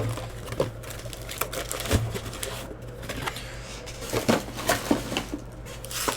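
Irregular clicks, taps and crinkles of a trading-card hobby box and its card packs being opened and handled, over a steady low hum.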